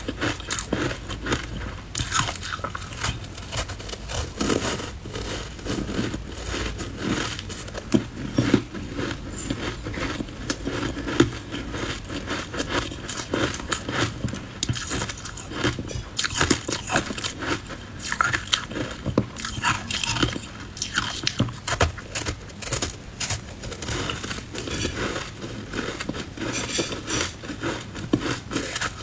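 Close-miked biting and chewing of ice coated in matcha powder: a dense run of crisp crunches and crackles as the ice breaks between the teeth.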